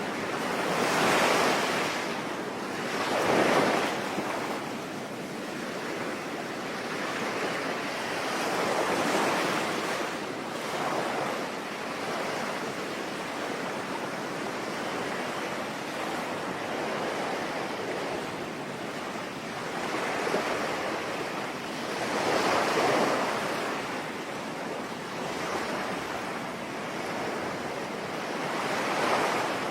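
Sea waves breaking and washing in, each swelling up and falling back every few seconds, over a steady hiss of falling rain.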